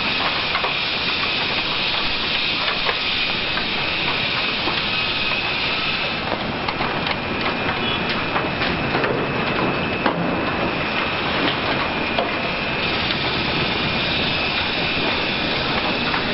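High-reach demolition excavator at work: a steady dense hiss over machine rumble, with scattered cracks and clatter of debris from about six to twelve seconds in.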